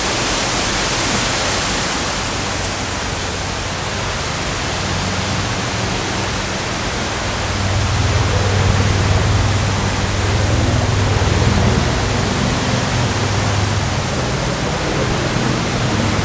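Strong wind buffeting the microphone: a steady rushing hiss with a low rumble that swells and fades in gusts, strongest in the middle of the stretch.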